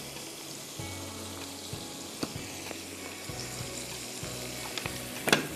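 Hot oil sizzling steadily in a frying pan where green chillies, chopped garlic and curry leaves are frying, with sauce just squeezed in. A single sharp pop near the end.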